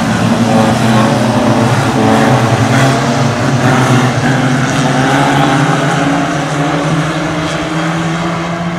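Several banger racing cars' engines running hard as the cars lap the oval, their overlapping engine notes rising and falling as they rev and pass.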